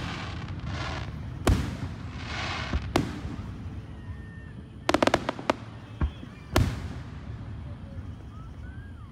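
Aerial fireworks shells bursting: separate booms about a second and a half and three seconds in, a quick run of several bangs about five seconds in, then two more booms soon after.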